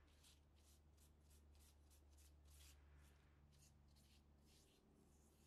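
Very faint rubbing of an alcohol wipe scrubbing the nylon edge of a tent window, in quick back-and-forth strokes about three to four a second.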